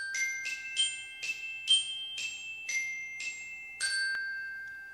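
Short intro jingle of bright, chiming bell tones: about ten struck notes, roughly two a second. The last note rings on and fades away.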